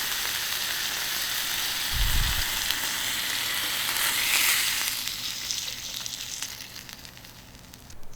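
Beef steak sizzling on a hot iron griddle, a steady high hiss with a short low thump about two seconds in. The sizzle swells briefly and then dies away over the last few seconds.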